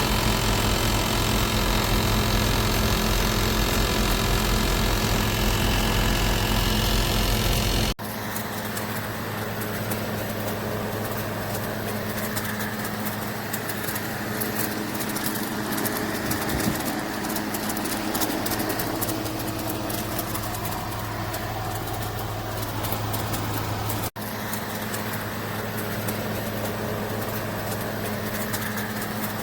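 GE Profile ClearView inverter window air conditioner running, a steady hum with rushing air. The sound drops abruptly to a quieter level about a third of the way in, then stays steady with another brief break near the end.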